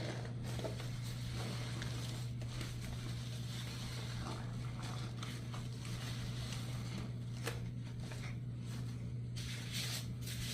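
A sponge being squeezed and worked by hand in a sponge-rinse routine, giving faint scattered crackly squishes, with a couple of brighter ones near the end. Under it runs a steady low hum.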